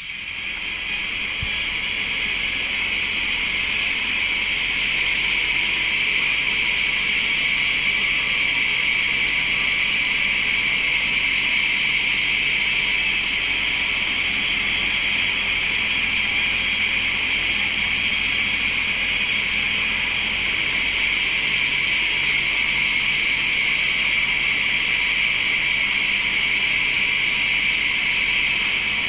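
Sawmill machinery running steadily, an even, high hiss-like noise with no separate cuts or knocks.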